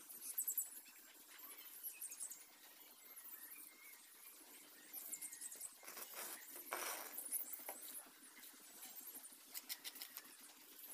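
Faint, intermittent scraping of a steel trowel on concrete in a wooden form, in short scratchy strokes that come in several bunches.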